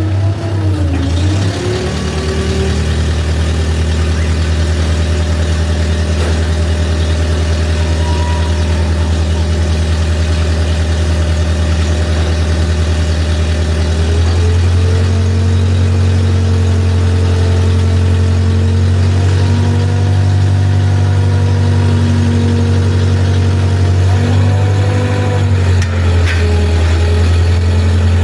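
Heavy diesel engine of construction equipment running steadily. It grows louder and heavier about halfway through, with brief pitch glides near the start and again near the end.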